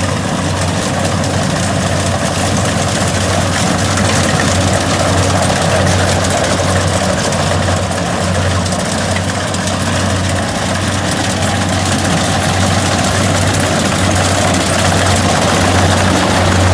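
Kubota DC70 combine harvester's diesel engine running steadily with a constant low hum and the rattle and rush of the machine.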